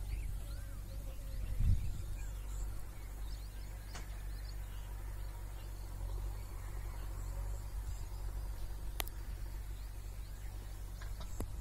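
Outdoor field ambience: a steady low rumble with faint, scattered high chirps, a soft thump just under two seconds in and a sharp click about nine seconds in.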